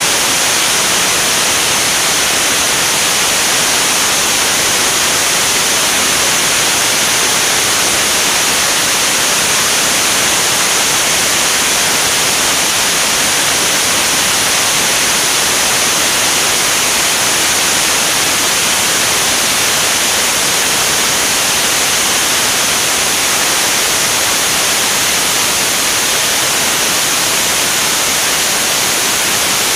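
Steady, loud rushing hiss of airflow over a camera mounted outside on an aircraft's wing in flight, with no engine tone standing out.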